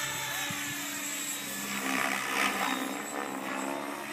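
Align T-Rex 700E electric RC helicopter in flight: a steady hum from its rotor and drivetrain, swelling louder briefly about halfway through.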